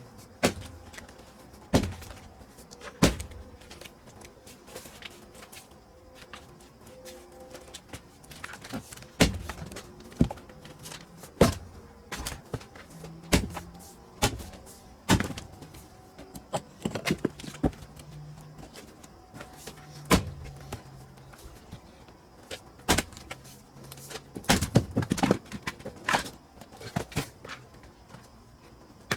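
Pine firewood being split and handled: sharp wooden knocks and thuds at uneven intervals, with a quick run of knocks near the end.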